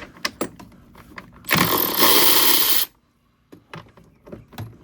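A power tool with a 13 mm socket spins a battery tray bolt for about a second and a half, among clicks and clinks of the socket and tools.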